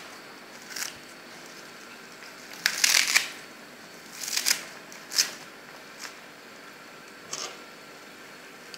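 Fresh lettuce leaves rustling in short crackly bursts, about six of them, the loudest about three seconds in, as the leaves are piled into a pot of curry and pushed down with a metal ladle.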